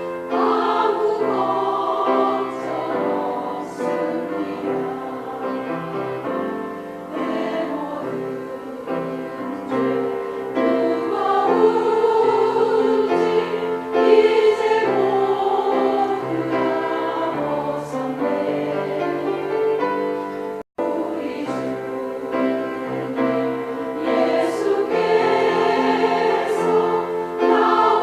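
Choir singing a Christian praise song in harmony, with long held notes. The sound cuts out for an instant about three-quarters of the way through.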